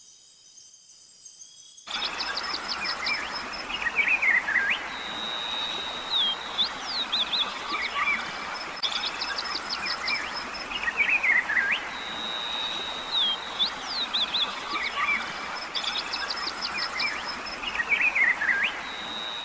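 Rainforest ambience of bird calls over a steady hiss: chirps, quick trills, swooping calls and a held whistle, in a pattern that repeats about every seven seconds, as a looped recording does. It starts suddenly about two seconds in, after a short stretch of faint night crickets.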